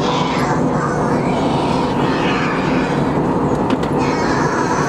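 Steady cabin noise inside an Airbus A321-211 airliner in flight: the even hum of its CFM56 turbofan engines blended with rushing airflow past the fuselage.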